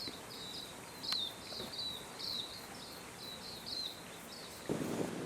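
A bird calling a quick, regular series of short high chirps, about two or three a second, which stops about four seconds in. Near the end a rustling noise starts.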